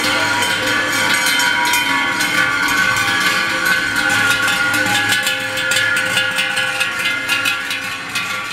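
Many large cowbells hung on walking cows clanging continuously and irregularly, their ringing tones overlapping.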